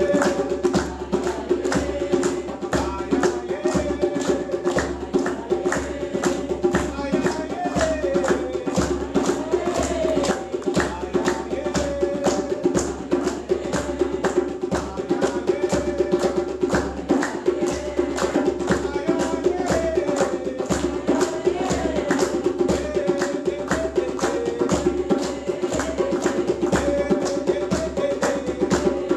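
Djembe played with bare hands in a fast, steady rhythm of sharp slaps and tones.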